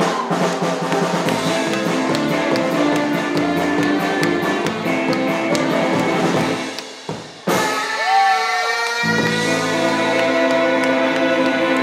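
Live rockabilly band playing: drum kit and electric guitar, with a short break about seven seconds in before the music picks up again with low bass notes.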